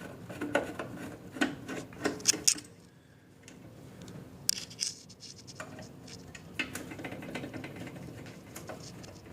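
Plastic top cover being worked loose from a Caravel lever espresso machine: scattered clicks, scrapes and light knocks of plastic against metal, with a short pause about three seconds in.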